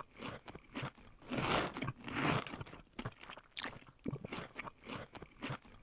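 A cookie being crunched and chewed in the mouth: a string of irregular crisp crunches, louder around a second and a half in and again just after two seconds.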